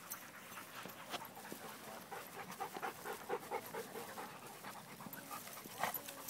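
Dogs panting hard while they play-wrestle, with short irregular breathy noises and scuffling.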